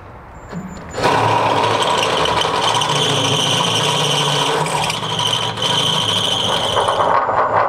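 Ryobi 18V cordless drill boring out a captive nut in the steel top spring seat with a 10 mm bit. It starts about a second in and runs steadily under load, with a high-pitched tone from the bit cutting metal that breaks briefly about five seconds in.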